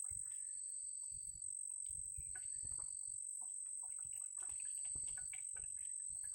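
A steady high-pitched insect drone in the forest, joined every second or two by a shorter, lower repeated call. Faint rustling and light knocks sound underneath.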